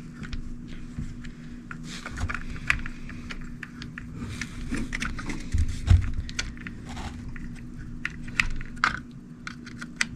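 Small plastic parts of an RC truck's drivetrain being handled and fitted together: irregular light clicks and taps, with a duller knock about six seconds in.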